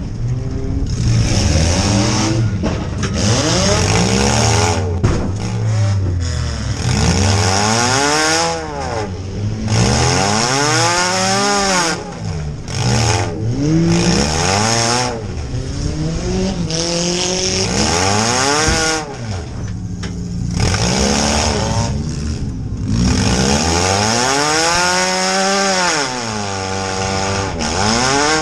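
Compact demolition derby car's engine revving hard and easing off over and over, rising and falling in pitch every second or few, heard from inside the stripped-out cabin.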